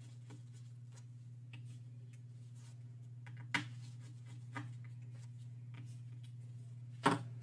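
Sparse light clicks and taps of small metal parts being handled: a bracket and its Phillips screws being lifted out of an iPhone SE 2022 and set on a magnetic mat. The sharpest clicks come about three and a half seconds in and near the end, over a steady low hum.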